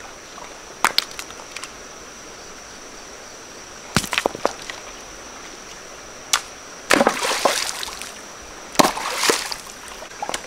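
Water splashing and sloshing as fish are caught by hand in shallow water, with a few sharp knocks and two longer splashes in the second half. A steady high whine runs underneath.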